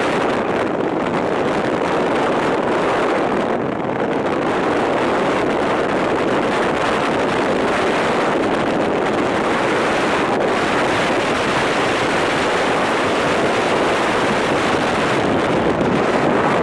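Steady wind rush buffeting the microphone on a moving motorcycle, with the Royal Enfield Bullet 350 running underneath.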